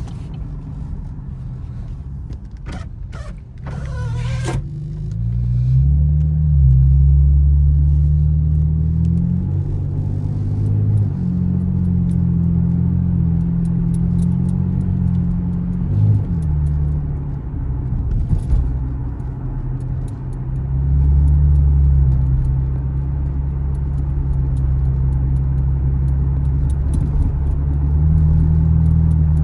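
A 500 hp Camaro's engine running deep and loud as the car is driven, its pitch climbing and dropping several times with throttle and gear changes. There is a short rattle of clicks a few seconds in.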